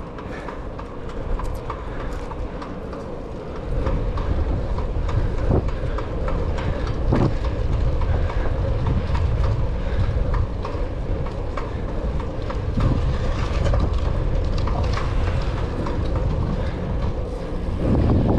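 Wind rumbling over the microphone and tyre noise from a single-speed bicycle rolling over cracked asphalt, with scattered clicks and rattles from the bike. The rumble grows louder about four seconds in.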